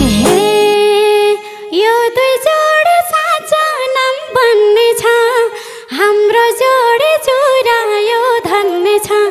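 A woman singing a Nepali dohori folk melody almost unaccompanied after the band drops out about a second in. Her phrases bend and ornament the pitch, with a few light clicks behind them.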